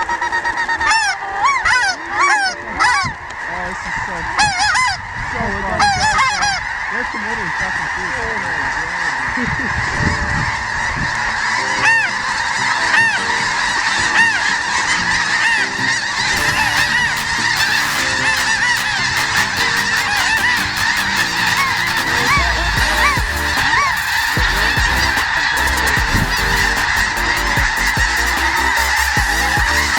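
A large flock of snow geese calling, a continuous din of many overlapping high honks. A few louder, nearer calls stand out in the first several seconds.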